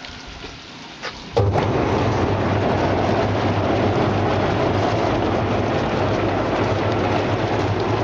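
Fish-scale-removing and washing machine starting up about a second and a half in, then running steadily: motor hum under the hiss of water sprays and the churning of its rollers tumbling whole fish.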